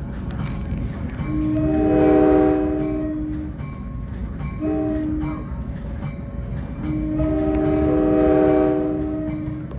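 Multi-chime air horn of the train's leading Comet V cab car sounding a long blast, a short blast and a long blast, completing the long-long-short-long grade-crossing signal, over the running rumble of the moving train.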